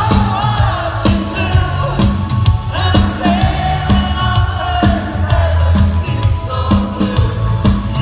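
Live synth-pop band playing, a male lead singer singing over keyboards, bass and a steady drum beat, heard from the audience in a concert hall.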